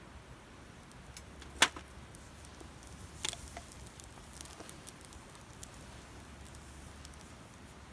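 Burning firewood crackling, with a sharp pop about a second and a half in, another about three seconds in, and scattered fainter ticks.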